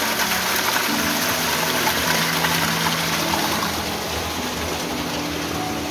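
Water rushing through the channel under a water-powered Tibetan prayer wheel, the flow that turns the wheel. Soft background music with held notes plays under it, and the water eases off about two-thirds of the way through.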